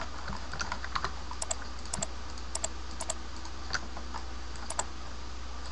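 Computer keyboard keys and mouse buttons clicking at an irregular pace, several clicks coming in quick pairs, over a steady low hum.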